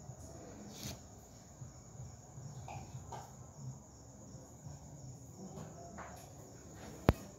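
High-pitched insect trilling steadily over a low background rumble, with one sharp click near the end.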